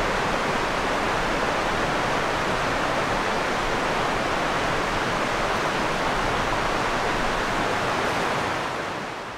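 Mountain river rushing steadily, fading out near the end.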